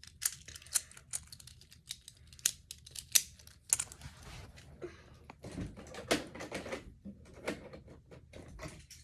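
A small plastic fidget toy being clicked and handled: a quick irregular run of sharp clicks for the first few seconds, then softer rattling and handling.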